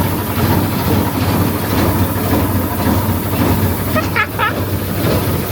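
A boat's inboard engine running steadily just after its first start, a loud, even low rumble. The crew later blame its unusual sound on a missing exhaust gasket and an unfinished exhaust pipe.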